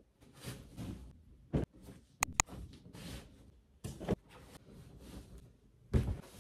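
Rustling and soft thumps of pillows, pillowcases and bedding being handled and set down on a bed, in separate bursts, with two sharp clicks in quick succession a little after two seconds in.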